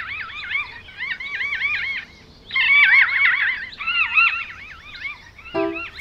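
Recorded kea play call played through a portable speaker: fast runs of rising-and-falling warbling notes, about five a second, in four bursts with short breaks between them. This is the kea's play call, the call used only in play, which sets other keas playing.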